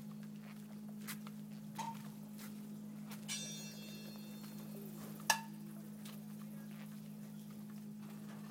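Steady low hum, with a few sharp clicks and a brief high ringing tone about three seconds in.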